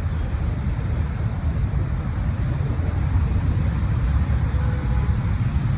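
Wind buffeting the microphone: a steady, unsteady-edged low rumble over the street noise.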